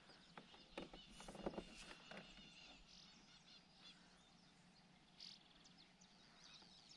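Near silence: faint outdoor ambience with soft bird chirps, and a few faint clicks and knocks about a second in.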